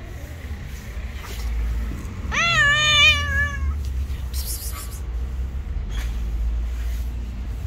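A cat gives one drawn-out yowl about two seconds in, lasting about a second and a half, rising at the start and then wavering and sagging slightly toward its end.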